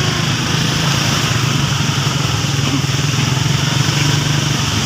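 Vehicle engine running steadily under way, a constant low hum with road and wind noise over it.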